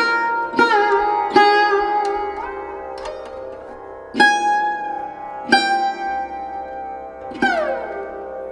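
Background music: a solo plucked string instrument playing slow single notes over a low drone, several notes bending up or down in pitch as they ring.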